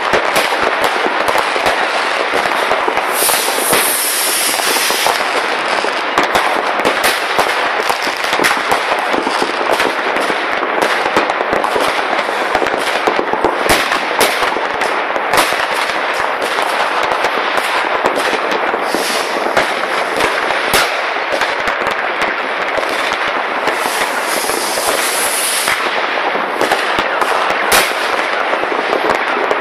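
Fireworks and firecrackers going off all over a town at once: a continuous crackle of countless bangs, near and far, with no pause. Twice, for about two seconds each, a high hiss rises over it.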